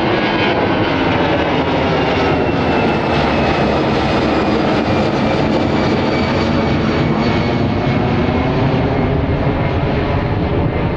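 Air Arabia Airbus A320neo jet engines at climb power as the airliner passes overhead after takeoff: a steady roar with faint whining tones over it.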